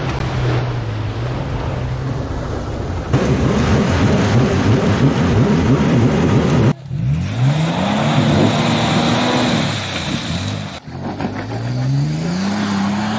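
Toyota FJ Cruiser V6 engines revving during wheelspin in mud and snow, in several short cuts: a steady drone, then a louder stretch of high revs with churning noise, then twice the revs climb, hold briefly and fall away.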